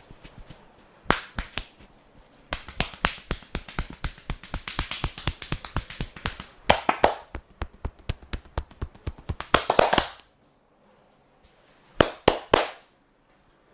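Percussive massage strokes: hands tapping and slapping the body in a fast run of sharp strikes, several a second, with three separate sharp strikes near the end.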